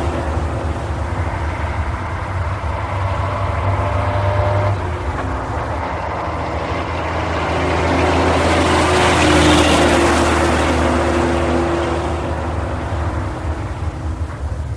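Racing truck engine running steadily, its sound swelling to a peak about two-thirds of the way through and then easing off.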